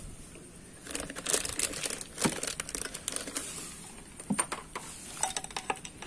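Plastic sheeting crinkling under the dismantled engine, with sharp clicks and short metallic clinks as a T-handle socket wrench and engine parts are handled.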